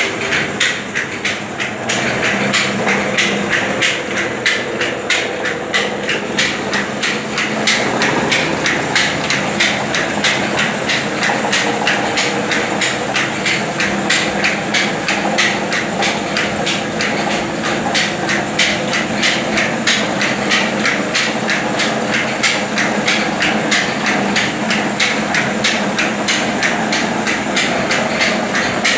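Belt-driven grain mill machinery running steadily: a hum under a rapid, even clatter of several knocks a second.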